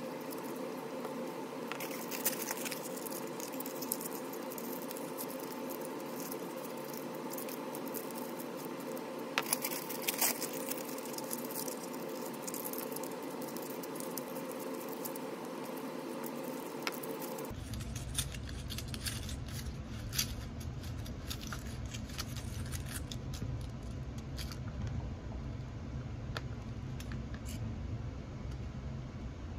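Aluminium foil crinkling and crackling in short irregular bursts as it is crumpled and pressed by hand into a small mold shape, over a steady background hum.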